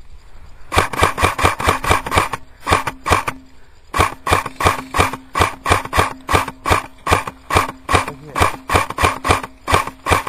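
Airsoft rifle firing a rapid string of shots, about six a second, with two short pauses in the first four seconds before it keeps firing steadily.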